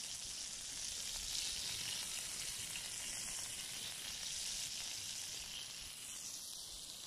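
Butter sizzling steadily in a ridged griddle pan on a portable gas camping stove, easing off slightly near the end.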